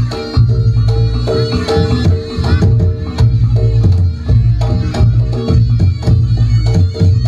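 Reog Ponorogo gamelan accompaniment: drums and struck gamelan percussion in a fast, dense rhythm over low sustained gong tones, with a held reed-pipe melody.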